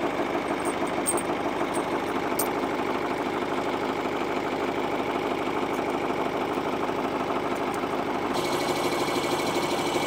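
John Deere 2355 tractor's diesel engine idling steadily, with a few faint metallic clinks of steel tire chain links being handled.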